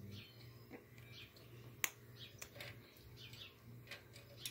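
Faint parrot chirps, with several sharp clicks mixed in; the loudest click comes about two seconds in.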